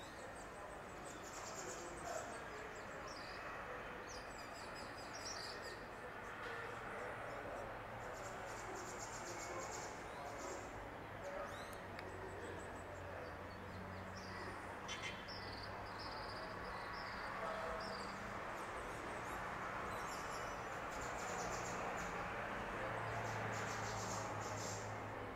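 Outdoor ambience: a steady background hiss with many short high chirps throughout, and a low steady hum that comes in about halfway.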